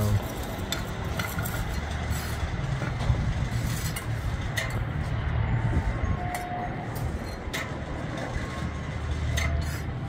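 Bricklayer's steel trowel tapping on bricks: a handful of sharp, scattered clicks over a steady low rumble.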